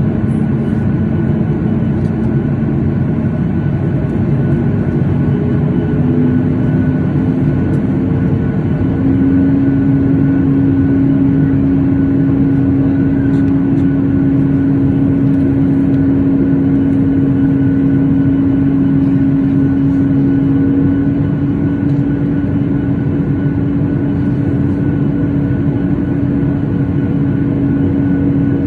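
Steady cabin noise inside a Boeing 737-8 with its CFM LEAP-1B engines running: a constant rumble with a humming tone that steps up in pitch twice in the first nine seconds, then holds.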